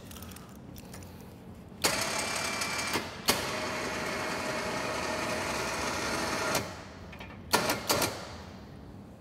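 Kolpin 12-volt electric ATV winch motor running under test: a short run of about a second, a brief stop, then a steady run of about three seconds, followed by a few sharp clicks.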